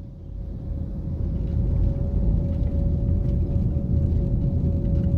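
Steady low road rumble and engine noise heard inside a moving car, with a thin steady hum above it. It grows louder over the first two seconds, then holds.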